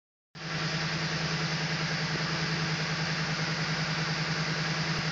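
Car engine idling steadily, heard from inside the car: an even low hum with a fine, regular pulse.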